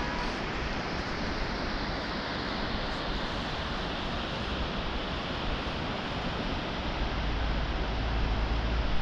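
Steady rushing of a rocky mountain river in the valley below, with a low rumble building over the last two seconds.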